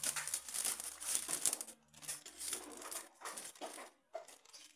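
Plastic zip-lock bag crinkling and rustling as it is handled and a phone part is taken out of it, most continuous in the first two seconds, then in shorter bursts that die away near the end.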